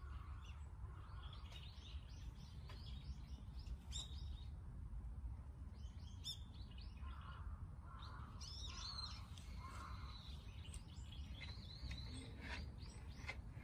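Small birds chirping: many short, quick calls in runs, thickest in the first few seconds and again from about eight seconds on, over a low steady outdoor rumble.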